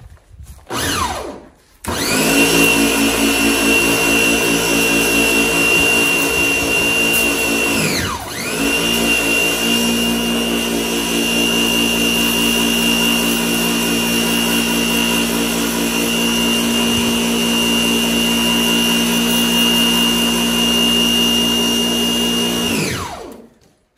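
Electric pressure washer's motor and pump starting with a rising whine and running steadily under load, with the hiss of the water jet from a zero-degree nozzle. About eight seconds in it winds down briefly and picks up again as the trigger is let go and pulled, then it winds down with a falling whine near the end.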